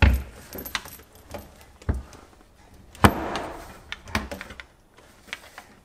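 Sharp plastic knocks and clicks as a Woder under-sink water filter cartridge is handled and pushed into its wall-mounted bracket, with a rustle of handling after the loudest knock about three seconds in.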